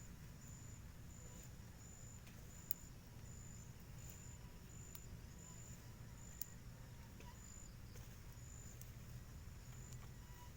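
Faint insect chirping: a high, short chirp repeated about twice a second over a low steady rumble, with a couple of sharp clicks.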